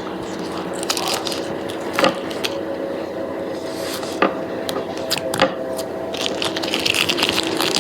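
Scissors clicking and rubbing while cutting into a foam squishy toy, with a few sharp snips about two, four and five and a half seconds in and quicker clicking near the end, over a steady background hum.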